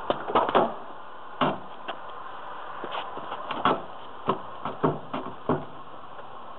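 Car door being opened and swung back over a high curb: a latch click at the start, then a string of short, irregular knocks and clunks as the door and its small homemade guard wheel meet the curb edge.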